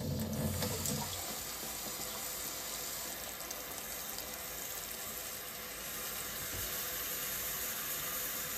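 Cold water running steadily from a kitchen faucet. It splashes onto the stainless-steel sink at first, then pours into a plastic food container as it fills. The running grows a little louder in the second half.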